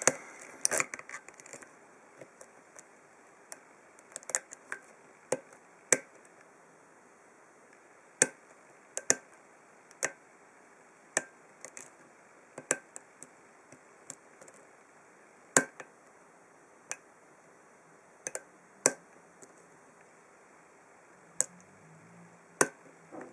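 Hook pick working the pins of a pin-tumbler padlock cylinder under tension, making sharp metallic clicks: a quick flurry at first, then single clicks at irregular gaps of about half a second to a second and a half.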